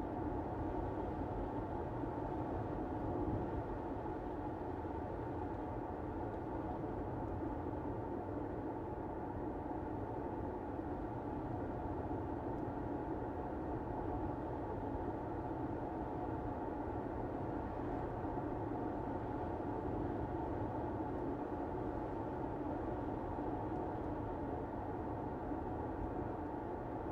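Car driving along at a steady pace: an even rumble of road and tyre noise that does not change.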